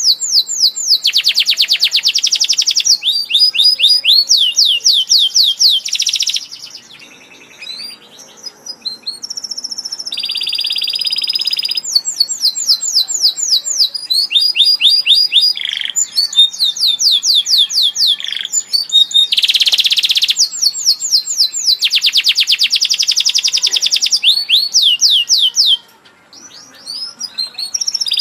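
Domestic canary singing: long runs of rapid, high repeated trills and warbling phrases, broken by a couple of short pauses.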